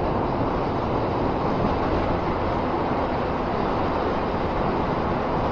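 Steady rush of wind over the microphone with the drone of a Honda Fireblade's inline-four engine underneath, at a constant level while the bike is ridden along.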